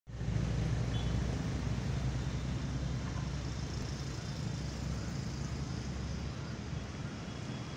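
Steady hum of city road traffic, with a low rumble that eases off about six seconds in.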